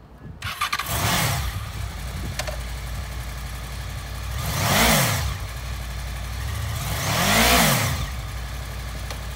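A 2002 Honda VFR800 Interceptor's liquid-cooled, fuel-injected V4 engine starts about half a second in and settles to a steady idle. It is then blipped twice on the throttle, near the middle and again near the end, each rev rising and falling back to idle.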